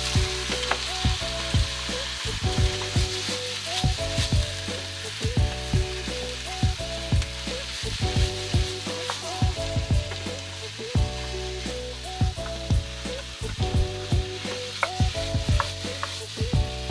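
Squid and onions sizzling in hot oil in a frying pan, stirred with a wooden spatula that knocks and scrapes against the pan several times a second.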